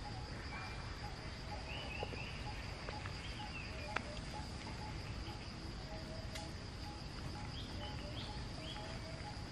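Outdoor ambience: insects holding a steady, high, even drone, with short chirping calls in the first few seconds and again near the end, and a few faint clicks.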